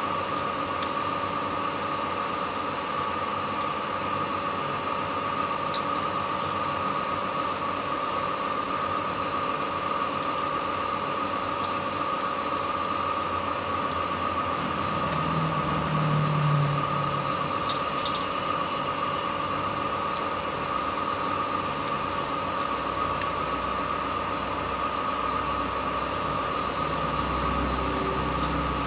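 A steady mechanical hum with a whine held on one pitch, a few faint clicks, and a low rumble that builds over the last few seconds.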